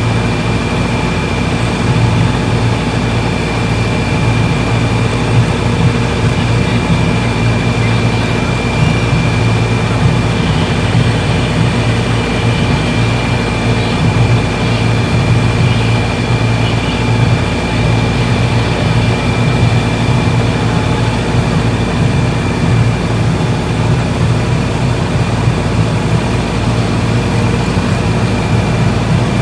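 Fire pump engines running steadily under load, with a constant high whine, while driving the hose lines and water cannons.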